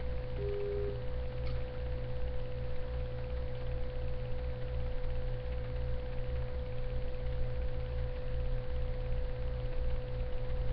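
Steady electrical hum with a constant mid-pitched tone, and a short lower beep about half a second in.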